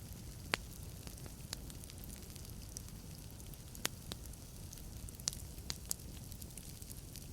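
Wood fire burning in a fireplace: a steady low rumble of flames with irregular sharp crackles and pops from the logs, a handful of louder pops scattered through.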